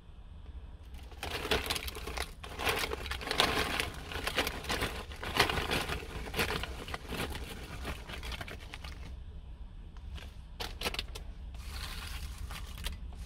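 A plastic crisp packet crinkling as crisps are shaken out onto a plate, with a dense crackle and patter of falling pieces. Then a few sharp crackles and a short rustle as a hand spreads the crisps.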